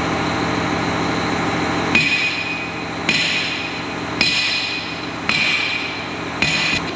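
Hammer blows on steel, about one a second, each strike ringing, while knocking at a John Deere 350G excavator's bucket linkage pin. An engine runs steadily underneath.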